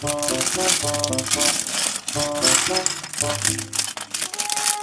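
Background music with a repeating tune, over the crinkling of a plastic LEGO parts bag and small plastic bricks rattling as they are tipped out.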